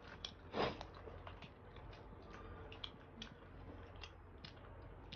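Soft eating sounds: scattered wet mouth clicks and chewing, several small clicks a second, with one brief louder breath-like burst about half a second in.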